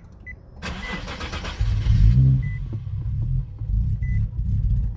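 Nissan 370Z's 3.7-litre V6 being started: the starter turns it about half a second in, and a second later the engine catches with a brief flare, then keeps running steadily. A high warning chime beeps a few times.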